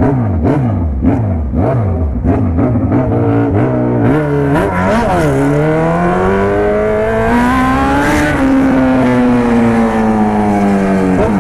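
Motorcycle engine being ridden hard: about two quick throttle blips a second over the first few seconds, a couple of short dips as it changes gear, then a long steady rise in pitch as it accelerates, easing back down over the last few seconds.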